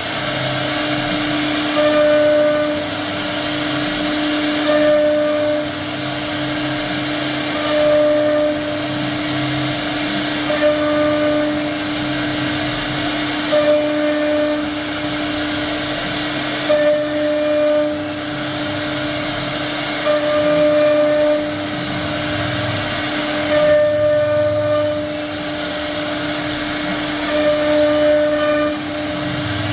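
CNC router running: a steady spindle whine and hiss, with a higher-pitched cutting note that swells about every three seconds as the bit makes repeated passes carving a membrane door design.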